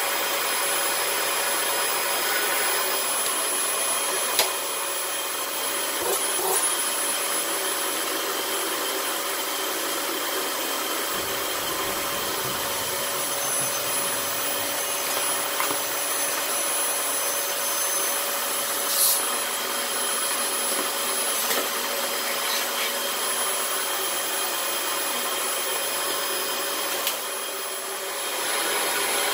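Dyson DC18 Slim upright vacuum cleaner running steadily with an even rush of air and a high motor whine. A few short knocks sound along the way, and the level dips briefly near the end.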